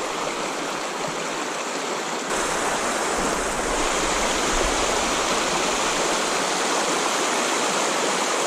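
Shallow river riffle rushing over cobbles: steady running water that grows louder about two seconds in.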